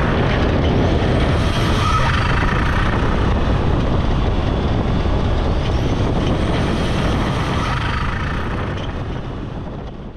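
Suzuki Cappuccino's small turbocharged three-cylinder engine, fitted with an open HKS intake filter and no factory recirculation valve, running while the car is driven, with road and wind noise. The sound fades out near the end.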